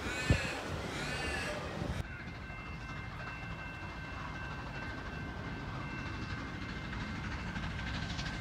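Victorian Railways K-class steam locomotive heard at a distance: a steady low rumble that grows toward the end, with a faint thin high tone held for about four seconds in the middle. The first two seconds hold sharp knocks and repeated rising-and-falling squeals.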